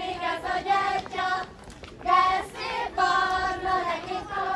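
Children singing together in held sung phrases, with a short break about one and a half seconds in.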